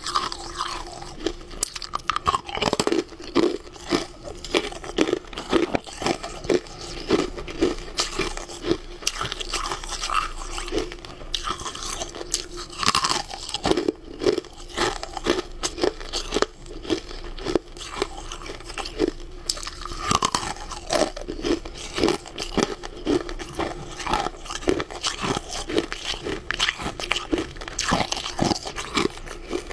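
Close-miked crunching and chewing of crunchy sweet food: a dense run of crisp bites and chews, several a second, with no pause.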